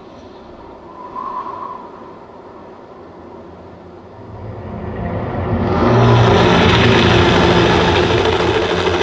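Film soundtrack: a low rumble with a short tone about a second in, then a heavy engine-like noise that swells from about four seconds in and stays loud.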